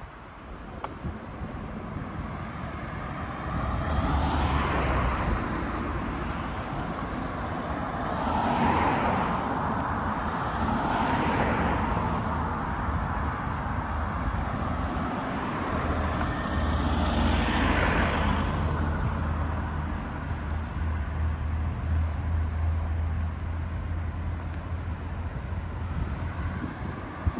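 Road traffic: about four cars pass one after another, each swelling and fading over a couple of seconds, over a steady traffic hum.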